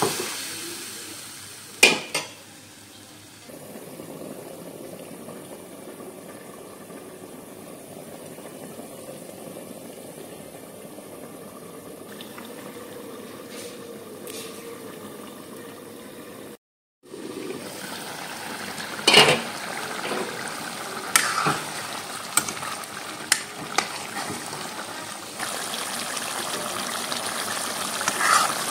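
Chicken curry bubbling and sizzling in a metal kadhai, with a metal spoon stirring and knocking against the side of the pan: one sharp knock about two seconds in and several more in the second half.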